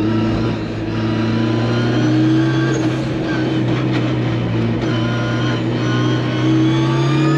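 Mazda MX-5 track car's engine heard from inside the stripped cabin while lapping in a high gear, holding a steady note that rises slightly in pitch near the end as it accelerates.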